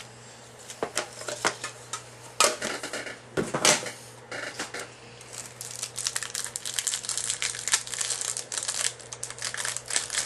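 A few sharp knocks of cards and packaging handled on a table, then a card pack's wrapper crinkling densely as it is torn open to reach the cards.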